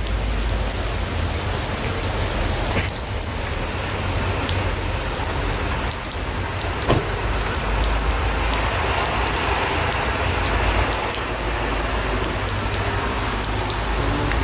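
A freight train of empty intermodal well cars rolling past: steady wheel-on-rail noise over a low rumble, with fine clicking and one sharp knock about seven seconds in.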